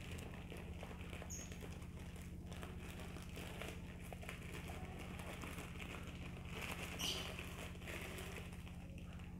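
Thin plastic bag crinkling as wheat flour is shaken out of it into a plastic bowl, over a steady low hum. The rustling swells briefly about seven seconds in.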